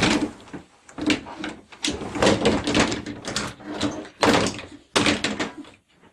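Louvered wooden closet doors and a room door being handled: a quick series of knocks, clatters and thuds that dies away just before the end.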